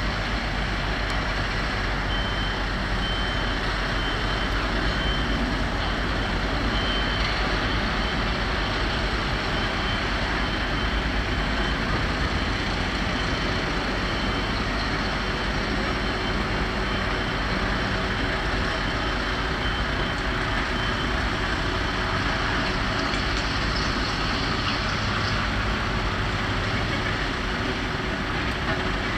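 Heavy diesel machinery running steadily. For several seconds near the start, a reversing alarm beeps about once a second as a machine backs up.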